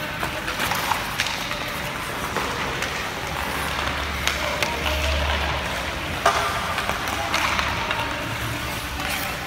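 Indoor ice rink practice: skate blades scraping the ice and hockey sticks clicking against the ice and puck, with occasional distant children's voices.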